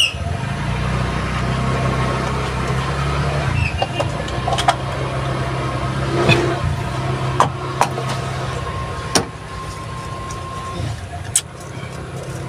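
An engine running steadily, louder for the first few seconds and then lower, with several sharp clicks and taps.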